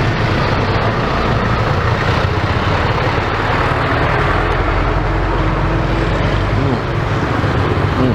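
Steady urban street noise: traffic running with a constant low rumble.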